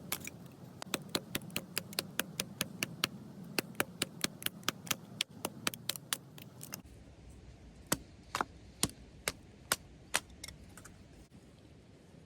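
A quick run of sharp knocks or taps, about three to four a second, then after a break in the background a few slower, spaced taps that stop about eleven seconds in.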